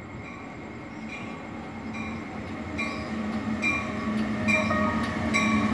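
NJ Transit ALP-46 electric locomotive pulling into a station, growing louder with a steady low hum. From about three seconds in its bell rings about twice a second.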